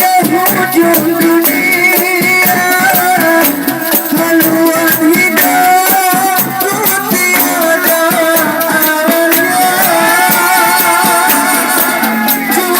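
Live band playing an instrumental passage of a Malay song: a wavering melody line with vibrato over fast, steady percussion.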